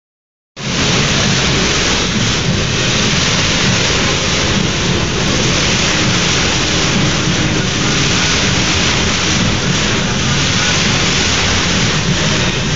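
Fountain water jets spraying and splashing down into the pool: a steady, loud rush of falling water with a low rumble underneath.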